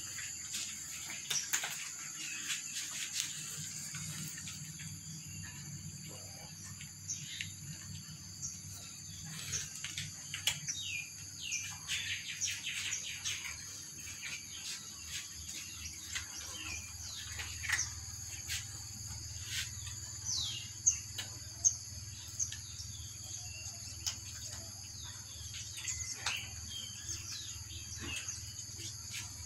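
Cats and kittens eating dry kibble: scattered crisp crunches and clicks of the pellets, with short bird chirps and a steady high-pitched hum in the background.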